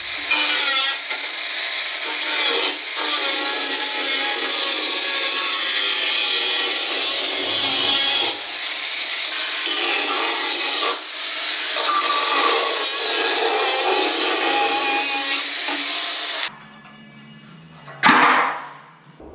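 Angle grinder cutting into the sheet metal at the lower door opening of a 1961 Chevrolet Apache C10 pickup, a steady high grinding hiss. It stops about three-quarters of the way through, and a short loud burst that quickly falls away follows near the end.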